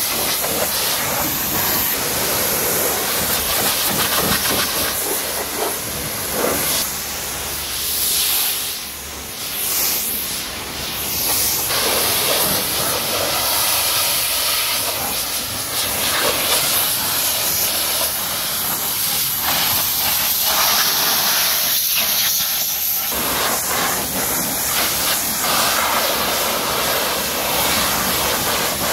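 High-pressure washer jet spraying onto a car's body panels and wheel: a loud, steady hiss of water that shifts in tone as the spray moves, easing off briefly about a third of the way through.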